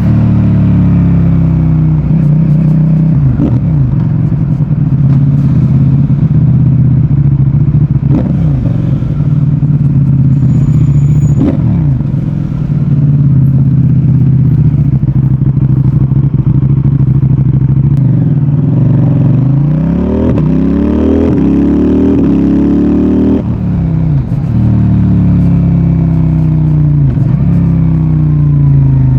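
CFMOTO 800NK Advanced's parallel-twin engine and exhaust under way. The pitch climbs and drops back again and again as the bike accelerates and changes gear, with a longer climb about two-thirds of the way through that ends in a sudden drop.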